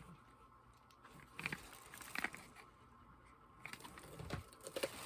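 Faint handling noise while unpacking cosmetics: a few scattered light clicks and crinkles of packaging.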